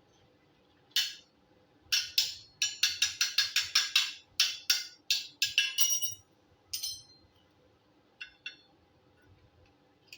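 Steel parts being struck metal on metal: one sharp ringing knock, then a quick run of about fifteen knocks at roughly four a second, then three more single knocks near the end.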